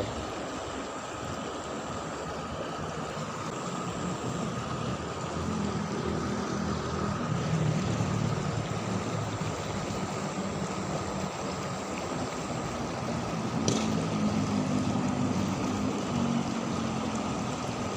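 River water flowing steadily, with a motor's low hum coming in about five seconds in and fading near the end. A single sharp click about three-quarters of the way through.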